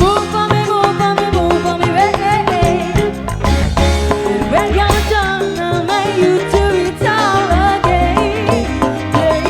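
Live dangdut band playing an instrumental passage: a wavering lead melody over bass and a steady drum beat.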